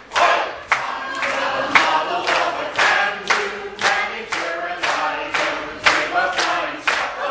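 Mixed choir of men and women singing, with sharp clap-like strokes keeping a steady beat about twice a second.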